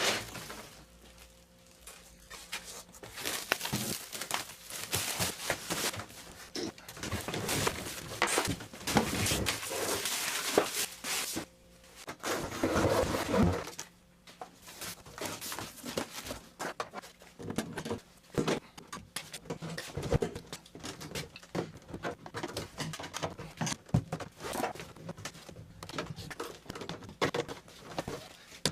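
Packaging being handled while a mini milling machine is unboxed: irregular rustling, scraping and knocking with no steady rhythm.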